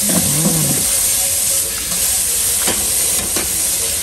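A steady hiss, with a few light knocks and clicks.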